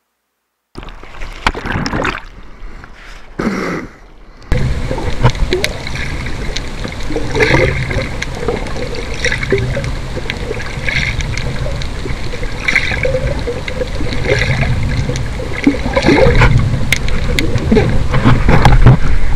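Water sloshing and splashing around a waterproof action camera as a surfer paddles on his board, the sound muffled whenever the camera dips under. Splashes come about every two seconds, in step with the paddle strokes.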